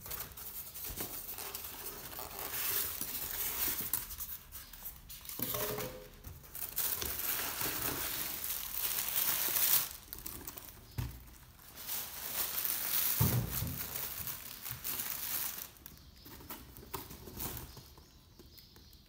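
Plastic packaging crinkling and rustling in uneven bursts as it is handled inside an opened cardboard box, with a couple of dull knocks from the box. It quietens in the last few seconds.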